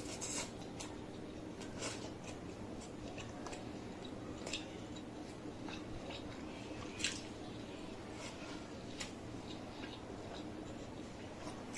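Close-miked chewing of food: scattered wet mouth clicks and soft crunches, with one sharper click about seven seconds in. A steady low hum runs underneath.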